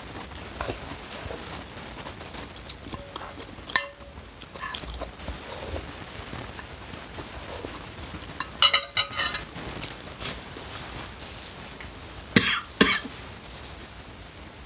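A man coughing in short fits, once about eight and a half seconds in and again about twelve seconds in, his throat irritated by very spicy chili-pepper noodle soup. A metal spoon clinks against the bowl about four seconds in.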